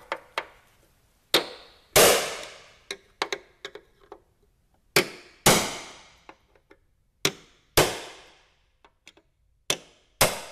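Hammer striking a pin punch to tap the cores out of the rear running-board rivets on a snowmobile. The sharp metallic strikes come in four pairs about half a second apart, one pair per rivet, each strike ringing briefly, with a few lighter taps between.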